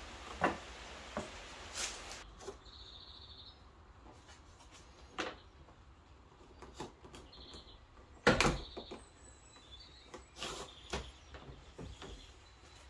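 Scattered light clicks and knocks of a plastic hood deflector being flexed and tapped against the van's bonnet as hands reach under its edge to press small adhesive plastic spacers in place. The loudest knock comes about eight seconds in.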